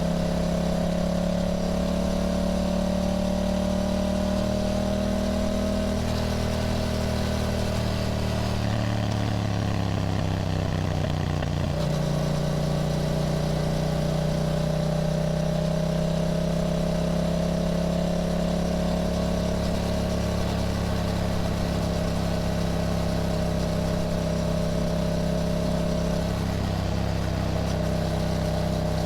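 Yamaha motorcycle engine running on the road at a steady cruise. About a third of the way in the engine note falls for a few seconds, then it comes back up and holds a steady pitch.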